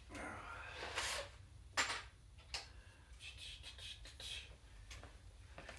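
Handling noises: scattered rubbing and rustling with a few short clicks and knocks, the sharpest about two seconds in. No drill motor is running.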